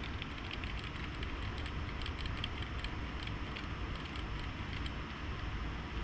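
Cooling fans of a multi-GPU mining rig running steadily as it boots, with light keyboard key taps scattered through.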